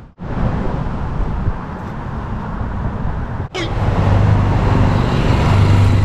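Street traffic: cars going by in a steady rush of road noise. About three and a half seconds in, after a cut, a vehicle engine's steady low hum comes in and the sound grows louder.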